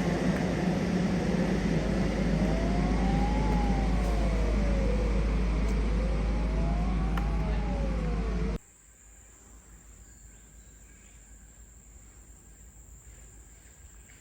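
A warning siren wailing slowly up and down, each rise and fall taking about three and a half seconds, over a heavy low rumble. About eight and a half seconds in it all cuts off abruptly, leaving quiet with a faint steady high-pitched tone.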